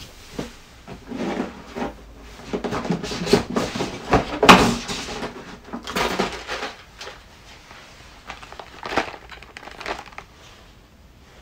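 Packaging and parts being handled: irregular rustling, scraping and knocking, loudest about four and a half seconds in and quieter after.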